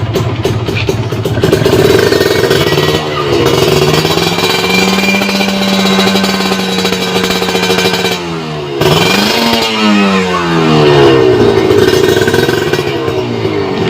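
Two-stroke Kawasaki Ninja 150 single-cylinder engine through a WRS aftermarket exhaust, revved while standing. It starts low, climbs about three seconds in and is held at high revs, drops back, is blipped sharply up again and then falls away to idle.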